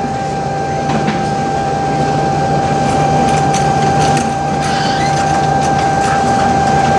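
Dexter T-300 double-loader commercial washer in its high-speed extract spin at about 600 rpm: a steady drum rumble with a constant high motor whine.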